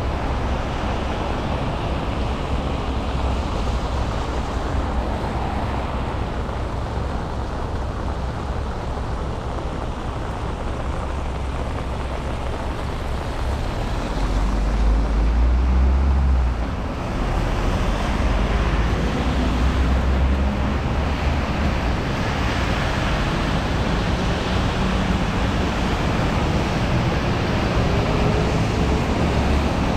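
Steady hiss of rain and traffic on a wet street, with a low rumble under it. A vehicle goes by loudest about halfway through, and near the end an engine's pitch rises as a vehicle pulls away.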